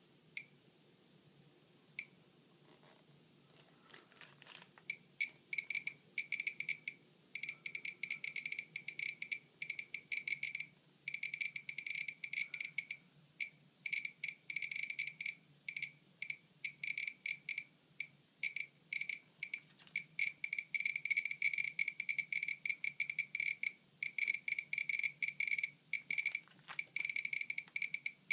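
Geiger counter sounding a short, high electronic beep for each detected count. A few isolated beeps come first, then from about five seconds in a fast, irregular stream as it is held against a bagged radioactive sample. The uneven spacing of the beeps is the random arrival of radiation counts, here at a high count rate.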